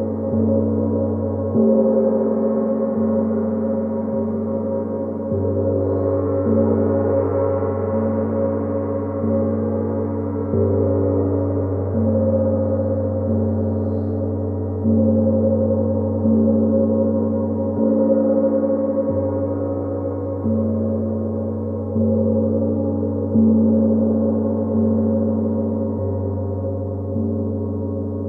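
Gong struck again and again, about one stroke every one and a half seconds. Its deep ringing tones overlap and hang on between strokes, and the low hum shifts in strength from stroke to stroke.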